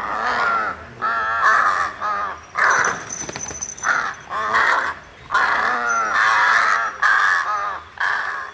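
A crow calling over and over, about a dozen short caws in quick succession.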